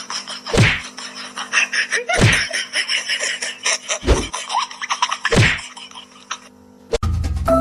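Four sudden thumps, spaced one to two seconds apart, over a steady background hum with small clicks; music starts near the end.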